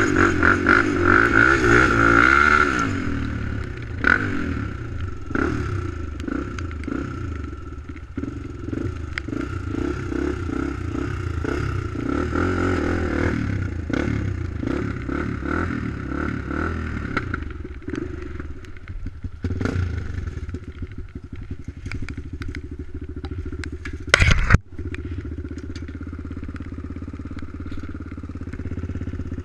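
ATV engine running under throttle, revving higher for the first few seconds and then running more steadily at lower revs as the quad rides over snow. A brief, very loud noise cuts in about 24 seconds in.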